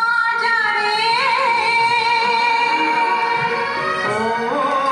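Vinyl record playing on a Rotel belt-drive turntable: a high singing voice holds long notes with vibrato and slides up in pitch near the end, over instrumental accompaniment.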